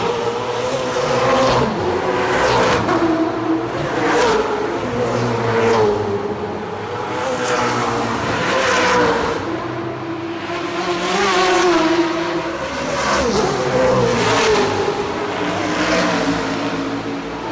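V8 Supercars race cars, 650-horsepower V8s, passing at speed one after another, engines revving and shifting through the gears, so the sound swells and fades every couple of seconds.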